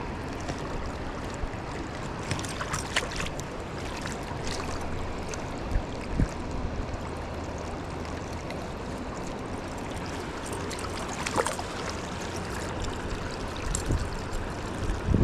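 Steady rush of flowing river water, with a few scattered light clicks and low knocks of handling close by.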